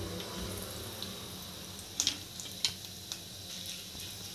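Cumin seeds and a bay leaf sizzling in hot oil in a pan, a steady hiss with a few sharp crackles about two seconds in and again a little later as the cumin crackles.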